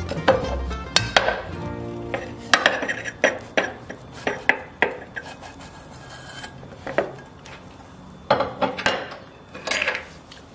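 A metal frying pan and a ceramic plate clinking and knocking together as an omelette is turned out of the pan onto the plate: a string of sharp clinks, with background music at the start.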